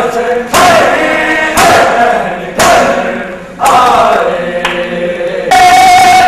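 A group of men chant a noha in unison while doing matam, slapping their bare chests together in a loud collective strike about once a second. Near the end the voices swell into a loud, held cry.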